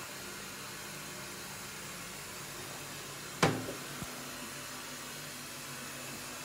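A toilet lid is lifted and knocks back against the cistern once, sharply, about halfway through, followed by a smaller knock half a second later, over a steady hiss.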